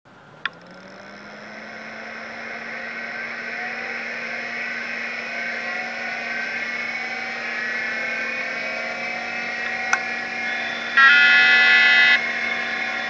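An old computer starting up: fans and drives spin up with slowly rising whines over a steady hum, a sharp click near the start and another about ten seconds in, then a loud beep lasting about a second near the end.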